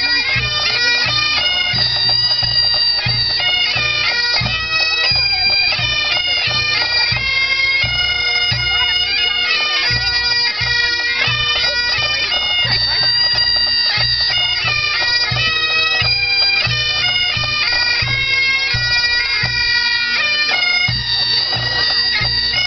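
Pipe band playing Highland bagpipes: a steady drone under a melody that moves quickly from note to note.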